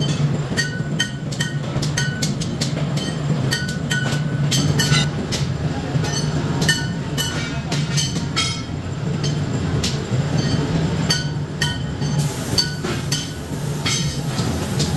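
Steady hum of workshop machinery with frequent sharp metallic clinks and knocks of steel parts, several of them ringing briefly.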